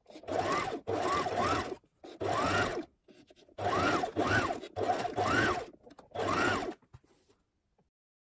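Brother HF37 sewing machine stitching through fabric in about six short runs, its motor rising and falling in pitch with each run, with brief pauses between; it stops about seven seconds in.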